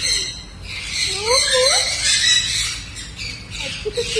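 Pet birds chattering and squawking: a dense, busy chatter throughout, with short rising and falling calls about a second in and again near the end.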